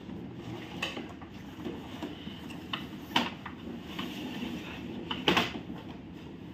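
Cardboard box being opened and a plastic tabletop foosball game slid out of it: cardboard scraping and rustling, with a few sharp knocks, the loudest a little past five seconds in.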